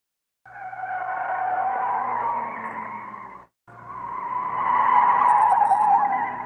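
Car tyres squealing in two skids: the first lasts about three seconds and cuts off, and the second, starting a moment later, is longer and louder.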